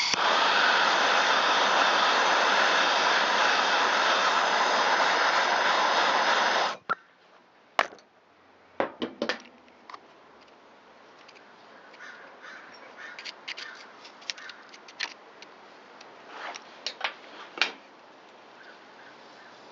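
Aerosol can of Kroil penetrating oil spraying onto a seized screw in a steady hiss for about seven seconds, then cutting off sharply. Light clicks and taps of handling follow.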